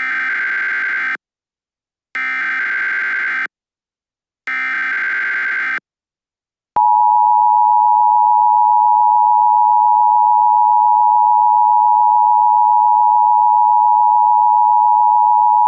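Emergency Alert System tones: three bursts of SAME header data of about a second each with short gaps between them, then from about seven seconds in the steady two-tone EAS attention signal, the sound that announces an emergency alert is about to be read.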